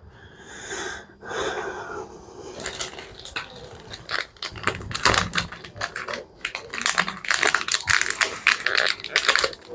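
Hands rummaging among small plastic items: a rustle in the first two seconds, then quick, irregular clicks and rattles.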